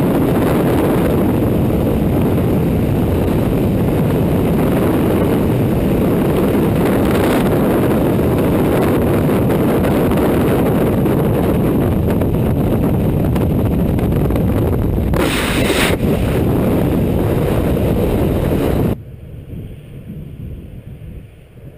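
Loud, steady rush of freefall wind buffeting the camera's microphone during a skydive. About 19 s in it cuts off suddenly to a much quieter, light wind hiss.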